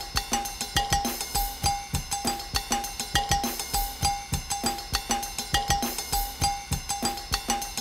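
Intro music: a drum-kit track with a quick, steady beat and a short note repeating on the beat.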